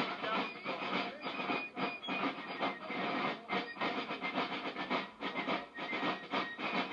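Drums of a fife and drum corps beating fast and steadily, with short high fife notes sounding over them; it starts abruptly.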